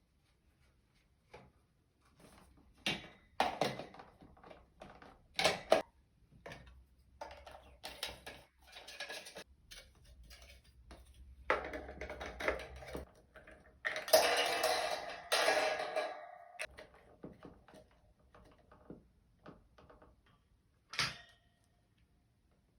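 Objects being handled: scattered knocks, taps and clicks, with a longer stretch of rustling and scraping about two-thirds of the way through that is the loudest part.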